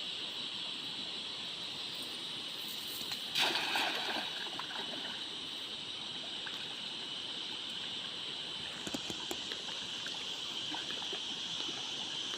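Water splashing: one loud splash about three seconds in that dies away over a second, and a few small splashes near the end, over a steady high hiss.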